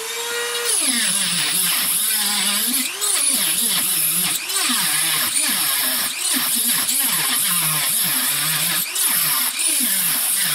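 High-speed Dremel rotary tool with a metal cut-off wheel grinding through a sheet-metal grate, over a strong hiss of metal being ground. It starts at a steady higher pitch, then about a second in the pitch drops as the wheel bites. After that the motor pitch keeps falling and rising as the cut loads and eases.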